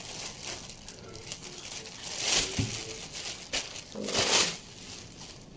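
Polythene packing cover rustling and crinkling as it is handled, in two louder bursts about two seconds in and about four seconds in, each with a soft knock.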